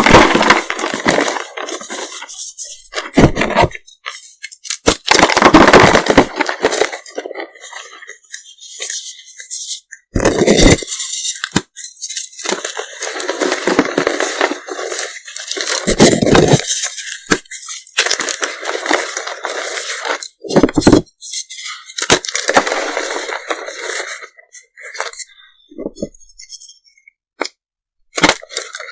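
Reformed gym chalk being crushed and crumbled, crisp crackling and crunching in repeated bursts with short pauses between.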